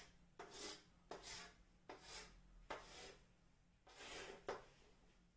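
Chalk drawing straight lines on a blackboard: about six faint strokes, each under half a second, with short pauses between them.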